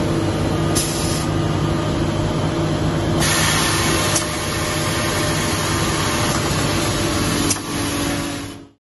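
Automatic industrial sewing unit running, its overlock sewing heads and belt conveyors making a steady mechanical hum. Short hisses of compressed air come from its pneumatic actuators, the longest lasting about a second, a little over three seconds in.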